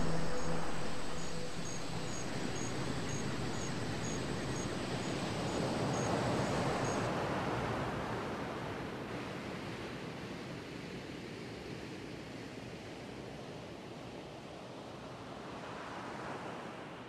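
The last tones of background music die away in the first second or two, leaving an even rushing outdoor ambience that swells and eases and fades out near the end. A faint high chirp repeats about twice a second through the first seven seconds, then stops.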